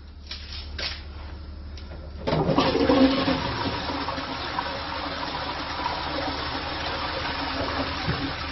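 Toilet flushing. A few light clicks come first, then about two seconds in water rushes into the bowl and swirls steadily down the drain.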